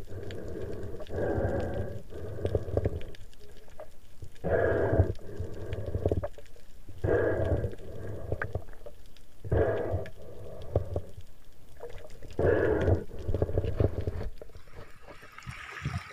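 Heavy breathing of a spearfisher snorkelling at the surface, drawn through the snorkel in a regular rhythm: a loud breath about every two and a half seconds, four times, muffled as heard through a waterproof camera.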